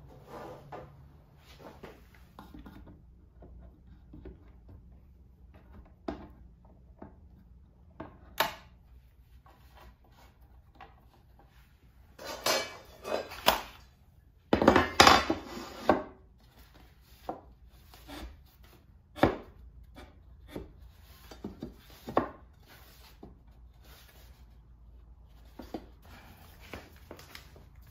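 Hand tools and lumber being handled on a wooden 2x4 frame: scattered knocks and clicks, with a louder spell of clattering and scraping from about twelve to sixteen seconds in.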